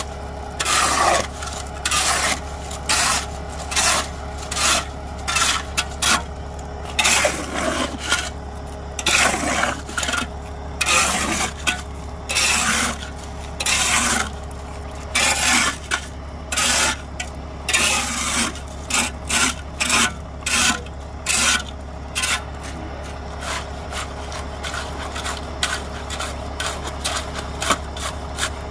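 Steel shovel scraping and pushing wet concrete into a hole, in repeated strokes about one a second, lighter in the last few seconds. A steady low hum runs underneath.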